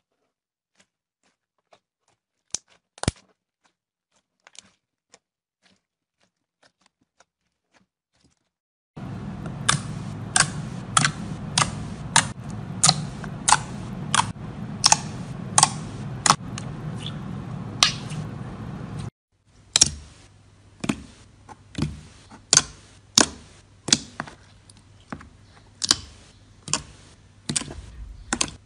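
Hands pressing and poking slime, squeezing out sharp clicking pops of trapped air. The clicks are sparse at first, then come in a regular run of about two a second from about nine seconds in.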